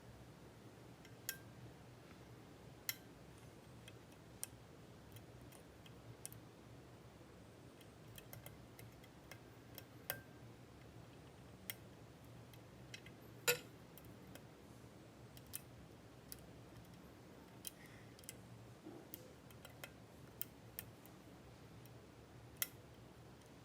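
Faint, irregular clicks of lock picking tools working the keyway of a Kwikset Gen 2 (SmartKey) lock, roughly one sharp click a second, the loudest about halfway through, over a low steady hum.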